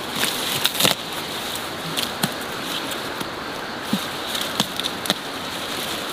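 Ginger plants being pulled and broken off at the ground by hand: a series of sharp snaps and cracks of stalks, with leaves rustling, over a steady hiss.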